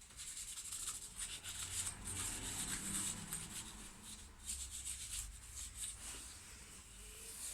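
Tissue wiping and rubbing on a laptop heatsink, cleaning off old thermal paste: a soft, uneven scrubbing hiss.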